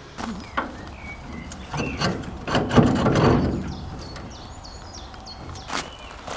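Birds chirping outdoors, with several sharp knocks and a louder noisy burst about three seconds in.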